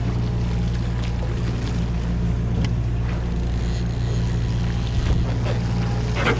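Long-range sportfishing boat's engine running, a steady low drone, with a couple of faint knocks in the second half.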